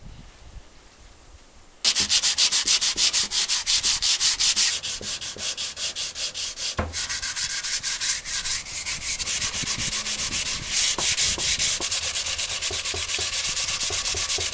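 A sheet of 180-grit sandpaper rubbed by hand over the timber clock body in rapid back-and-forth strokes, starting about two seconds in.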